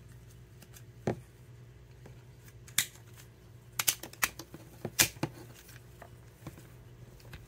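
Plastic clicks and snaps of a small Transformers Bumblebee action figure's parts being folded and pushed into place, a handful of sharp clicks with the busiest stretch in the middle, over a faint low hum.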